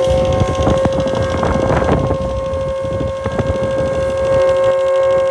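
Homemade mini Super Sirex model siren running at speed, a steady single-pitched wail with overtones, over rough rushing air noise and irregular clicks from the air being blown into it for a boost. About four and a half seconds in, a second, lower tone joins the wail.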